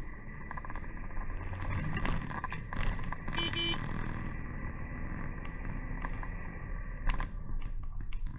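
Lorry cab on the move: a steady engine and road drone with scattered clicks and rattles. A brief high tone sounds about three and a half seconds in.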